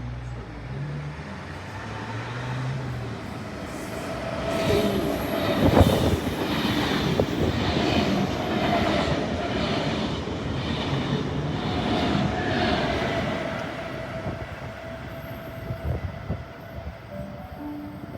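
A train passing close by. It builds to its loudest about six seconds in with a sharp knock, then runs with an even, repeating clatter of wheels over the rail joints before fading away.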